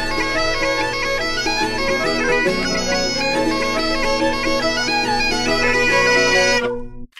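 Studio intro theme music: a melody moving over a steady held drone, cutting off suddenly near the end.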